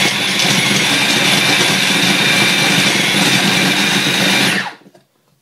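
Small electric food processor motor running steadily under load, its blade chopping banana and walnuts and almonds into a thick paste, with a faint high whine over the grinding. It stops about four and a half seconds in and winds down.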